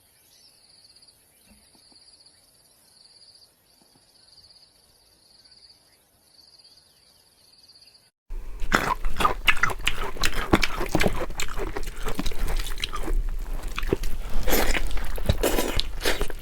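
Faint pulsing high-pitched chirping of insects for about eight seconds, then a sudden cut to loud, dense wet crackling and clicking of food being cooked.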